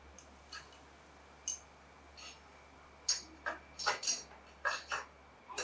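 A run of light, sharp clicks and taps from small parts and tools being handled during bicycle assembly: a few scattered clicks, then a quicker cluster of about eight in the second half.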